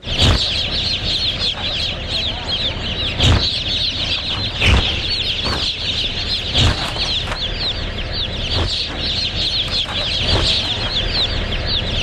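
A crowd of young broiler chicks peeping all at once: a dense, steady chorus of high, falling peeps. A few dull thumps are scattered through it.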